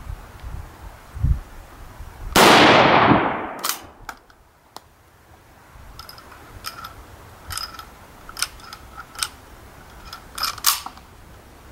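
A single shot from a Budapest M95 straight-pull rifle in 8 mm about two seconds in, loud, with a report that rolls away over about a second. From about six seconds on, a series of sharp metallic clicks and clacks as the straight-pull bolt is worked.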